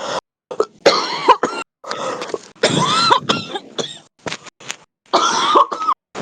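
A heavy smoker's coughing fit: a rapid run of hoarse coughs, some catching in the throat with a short rising-and-falling tone, easing off about four seconds in before a last burst of coughs.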